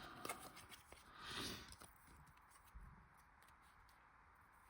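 Faint handling of Pokémon trading cards, with a few soft rustles and small ticks against near silence.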